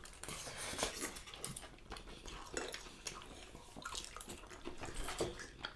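Close-up eating sounds: soft, irregular wet smacks and clicks of chewing as two people eat pork chop, apple and vegetables.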